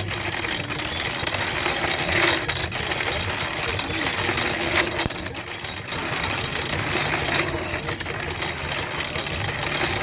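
One-third-scale model Case baler running, a steady mechanical clatter with an engine running underneath.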